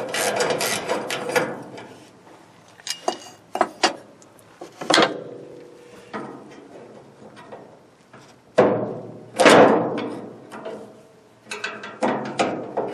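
Hand work removing a safety shroud from a truck's hood latch area: scraping and rattling with scattered sharp clicks and knocks, two louder scrapes near the middle, and a quick run of clicks near the end.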